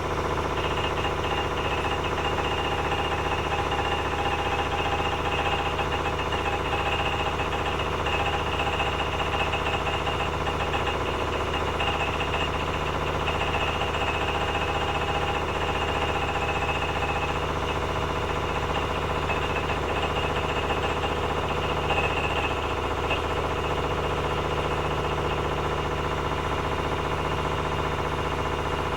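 Privileg 9515 Sensation washing machine spinning at 900 rpm, a steady hum with a fast knocking from inside the machine. The owner cannot trace the knock: the machine runs quietly without laundry, and the drum neither wobbles nor has play.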